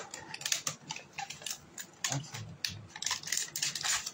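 Plastic packaging crinkling and small packaged items clicking and knocking together as hands rummage through a cardboard box of products, in quick irregular bursts.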